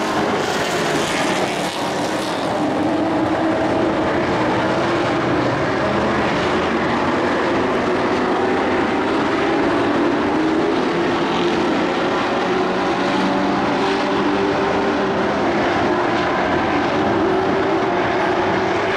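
Several dirt-track race trucks' engines running together around the oval, a steady overlapping engine sound whose pitch slowly rises and falls as the trucks go around.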